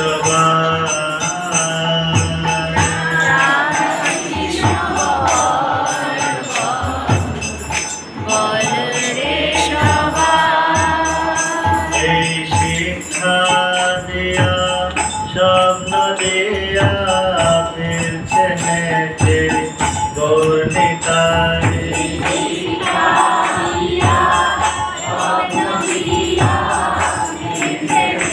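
Devotional kirtan: a melodic sung chant with small hand cymbals jingling in a steady rhythm.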